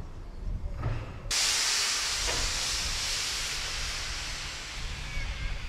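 Steam hissing loudly from O4 class 2-8-0 steam locomotive 63601 while it stands, cutting in suddenly about a second in and then holding steady, slowly fading.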